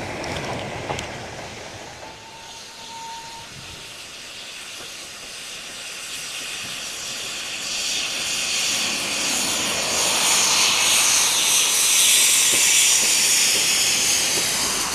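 Steam hiss from an LMS 'Jinty' 0-6-0 tank engine working a train of coaches, building as it comes near and loudest as it passes beneath. The opening seconds hold the rumble of a goods train's wagons running past.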